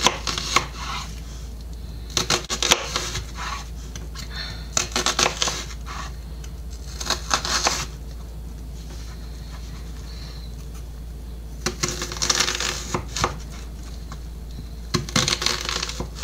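Kitchen knife cutting through a white onion and tapping on a wooden cutting board in runs of quick cuts, about six runs with short pauses between them.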